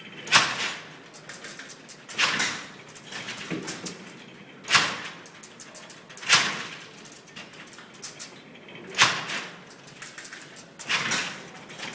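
Charles Babbage's Difference Engine No. 2, turned by hand, its columns of metal figure wheels and carry levers clattering as it calculates. A sharp metallic clank comes about every two seconds, six in all, each fading over about half a second, with softer rattling between.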